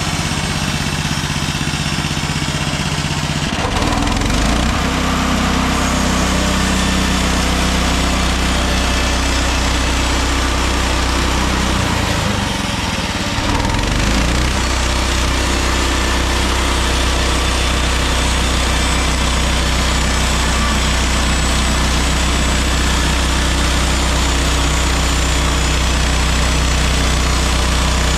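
Engine of a MechMaxx SM32 portable band sawmill running. It speeds up about four seconds in, wavers briefly a few seconds before the middle, then holds a steady speed.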